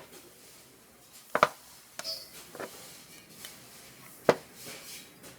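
Hand work on small parts at a workbench: a few separate sharp knocks and clicks, a double knock about a second and a half in and the loudest single knock about four seconds in.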